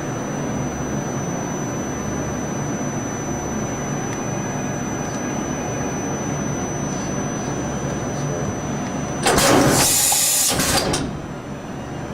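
1998 Okuma Howa Millac 438V CNC vertical machining center running with a steady hum and a low throb that comes and goes at a regular pace. About nine seconds in there is a loud hiss lasting under two seconds.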